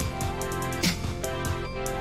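Background music with held instrumental notes and a steady drum beat.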